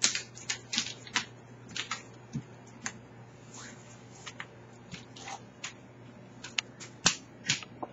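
A coonhound's claws clicking on a vinyl floor as he walks around: a run of irregular sharp clicks, a few a second.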